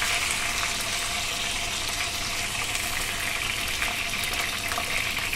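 A whole chicken frying in hot oil in a pan: a steady sizzle with small scattered crackles.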